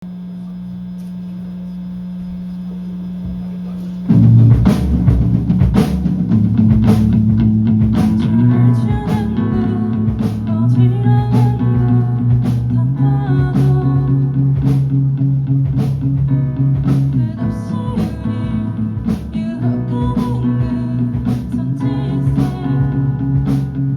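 Live rock band playing a song's intro: a single held note swells for about four seconds, then drums, bass, electric guitar and piano come in together and play on with a steady beat.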